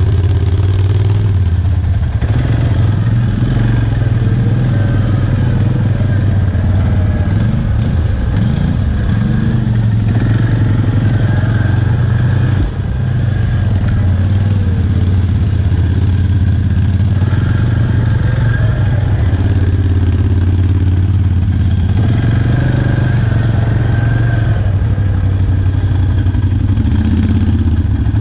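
ATV engine running steadily on a slow trail ride, with small rises and falls in throttle.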